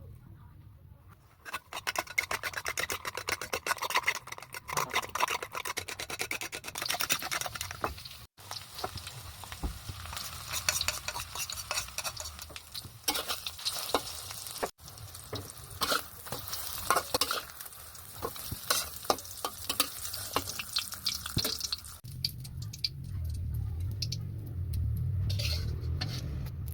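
Rapid clicking and scraping of a utensil beating eggs in a bowl, mixed with the sizzle of an omelette frying in oil. Over the last few seconds the clicking thins out and a low steady hum comes up.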